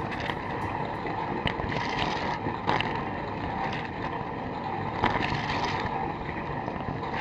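Water spraying and sloshing inside a running Fisher & Paykel Nautilus dishwasher, picked up by a camera inside the tub: a steady rushing wash with a faint hum and a few sharp spatters.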